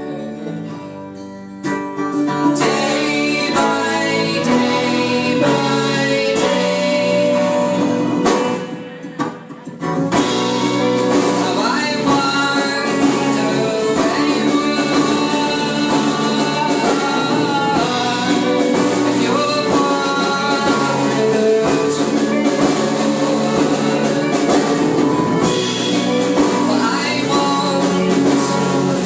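Live folk band playing a song, with singing over guitar and other instruments. The music is softer at first, drops away briefly about eight seconds in, then the full band comes back in.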